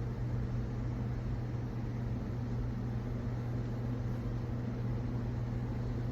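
Steady low electrical hum over a constant hiss, unchanging throughout, like a running appliance or motor.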